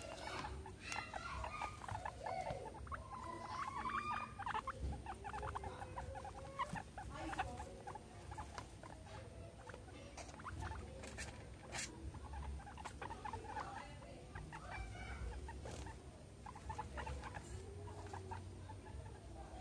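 Guinea pigs making short squeaking, chirping calls over quick pattering and rustling as they scurry over artificial turf.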